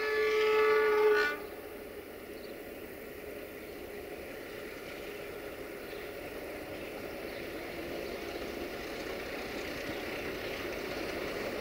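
060-DA (LDE2100) Sulzer diesel-electric locomotive hauling a freight train, giving one horn blast that stops about a second in. Then the locomotive and wagons run steadily toward the listener, growing gradually louder.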